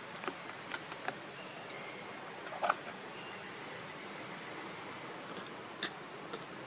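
Steady high-pitched insect drone over outdoor background noise, with a few small clicks and one short louder sound about two and a half seconds in.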